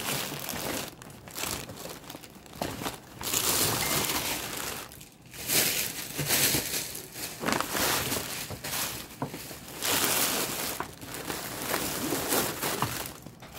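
Plastic bags and paper packaging rustling and crinkling as they are handled, in irregular bursts with short pauses.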